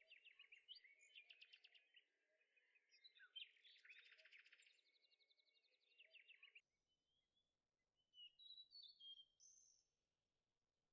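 Near silence with faint bird chirps and rapid trills, then a few higher chirps about eight seconds in.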